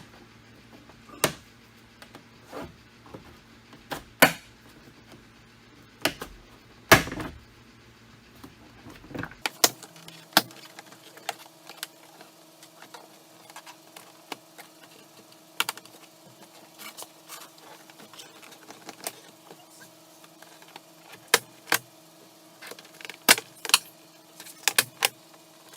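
Sharp clicks and knocks at irregular intervals from hand work on a Jeep Wrangler JK door with a pry tool, some of them loud. A faint steady hum comes in about a third of the way through.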